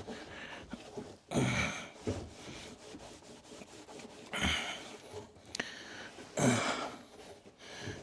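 A cleaning cloth rubbing and dragging through the condenser housing of a condensing tumble dryer, in three main strokes with lighter scuffing between.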